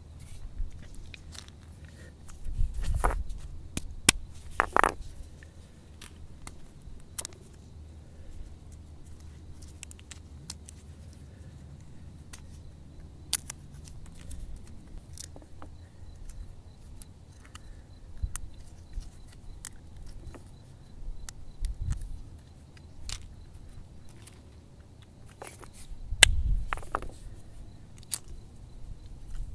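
Acorns being cracked open with a hand-held cobble hammerstone on bare rock, and their shells peeled apart by hand: scattered sharp cracks and clicks, with a few louder knocks of stone on rock about three to five seconds in and again near the end.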